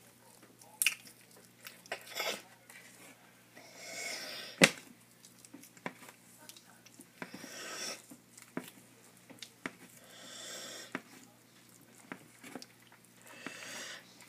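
Tortoise biting and chewing shredded food on a plastic tray: irregular sharp clicks and crunches, the loudest about four and a half seconds in, with soft breathy rushes of noise every three seconds or so.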